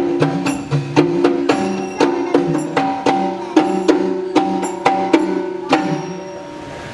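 Koodiyattam percussion: drum strokes with ringing hand cymbals in a steady rhythm of about two strikes a second, fading out near the end.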